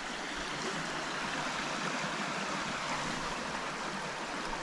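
Steady rushing of running water, like a stream.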